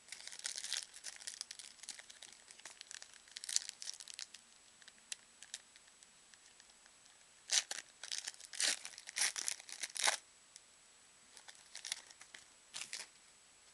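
A pack of football trading cards being torn open, its wrapper crinkling in bursts: a run of crackles in the first few seconds, louder ones about two-thirds of the way through, and a few more near the end.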